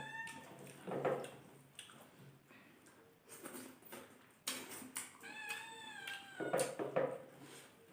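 Pet cat meowing twice: a short call at the start and a longer, drawn-out one about five seconds in, begging because it has not been fed. A few soft clicks come in between.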